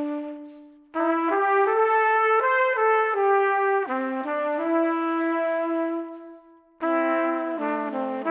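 Background music: a brass melody in short phrases of held notes, fading out and starting again about a second in and again near the end.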